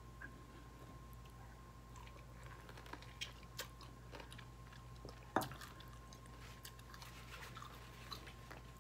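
A person chewing a piece of raw lemon: faint wet mouth clicks and smacks, with one louder click about five seconds in. A faint steady hum sits underneath.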